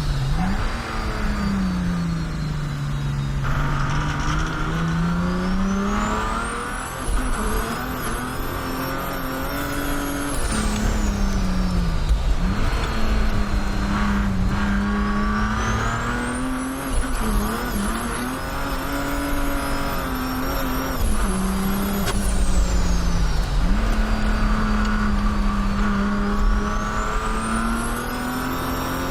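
Mercedes OM606 three-litre straight-six turbodiesel with a big turbocharger running at high boost. A turbo whistle climbs steeply and falls away again, three times, over the engine's drone.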